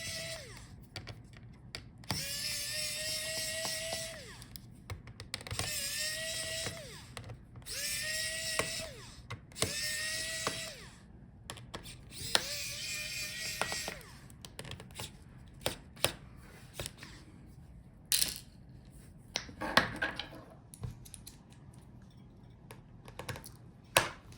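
Electric precision screwdriver whirring in short bursts of a second or two, about six times, each spinning up to a steady pitch and then stopping, as it backs screws out of a laptop motherboard. For the second half, only scattered light clicks and taps of small parts being handled.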